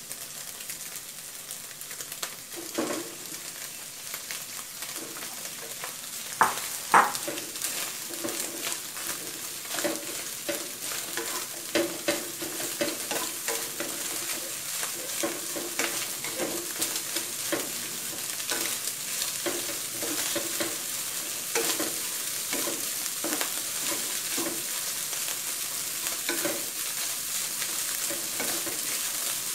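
Shrimp fried rice sizzling in a nonstick wok, with a wooden spatula stirring and scraping the rice, egg and shrimp. Two sharp knocks stand out about six to seven seconds in.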